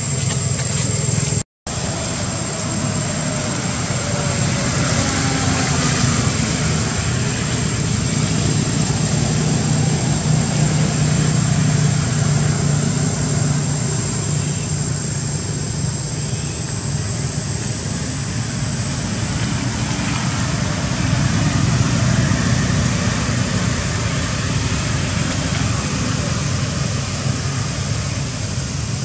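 Steady outdoor background noise: a low drone like distant engines or traffic, with a thin, high, steady whine over it. The sound cuts out completely for a split second about a second and a half in.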